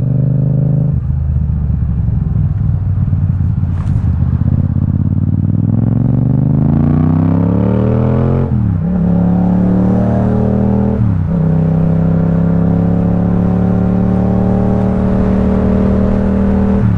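Yamaha XSR700's 689 cc parallel-twin engine, breathing through a full carbon Akrapovic exhaust system, on the move. The engine pulls up through the revs for several seconds, drops in pitch at two gear changes, then holds a steady cruising note.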